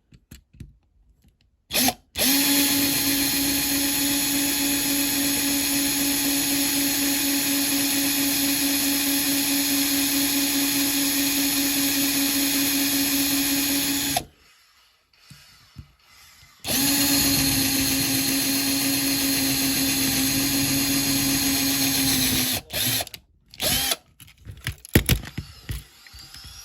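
Electric drill drilling out the diecast rivets that hold a model car's base on. It runs steadily in two long spells, about twelve seconds and then about six, with a short stop between, and gives a few short bursts near the end.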